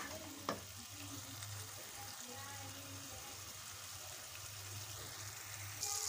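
Thick beef stew sizzling quietly in a pan, with a single click about half a second in. A louder, higher sizzle comes in just before the end.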